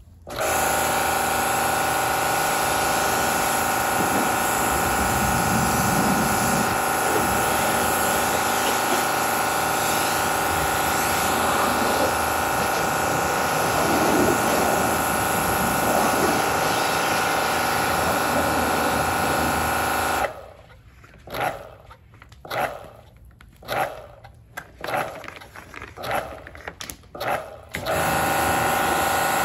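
Kränzle TST electric pressure washer running steadily with a whine as it sprays water. About two-thirds of the way in, the pump starts and stops in about eight short bursts as the spray-gun trigger is squeezed and released, then runs steadily again near the end.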